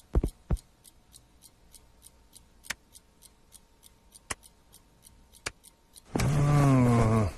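Cartoon sound effects: a couple of short thumps, then faint steady ticking, about four a second, with a few sharper clicks. Near the end comes a loud, low, groaning vocal sound about a second long that falls in pitch.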